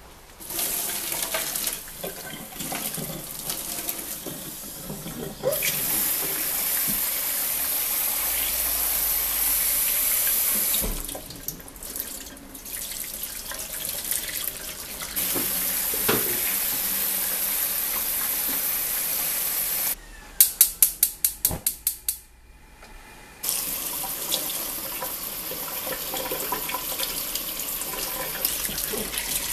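Water pouring and splashing into a stainless steel kitchen sink as the cooking water is drained from a clay pot of boiled azuki beans, and a tap running into the pot to rinse them. The flow stops and starts several times, and about two-thirds through there is a quick run of about ten loud clicks.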